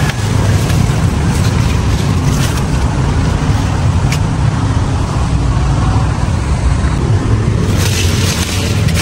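A steady low rumble runs under leafy branches being handled and brushed through, with a louder rustle of leaves near the end.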